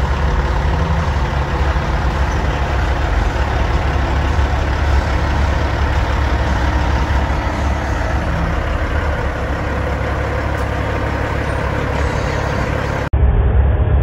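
Semi truck's diesel engine idling: a steady low rumble with no change in speed. It breaks off sharply near the end and comes back duller.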